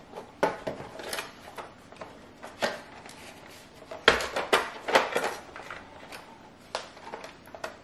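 Irregular plastic clicks and knocks as a Roomba 614 robot vacuum's plastic housing is handled and turned over on a stone countertop, with a busier cluster of knocks about four to five seconds in.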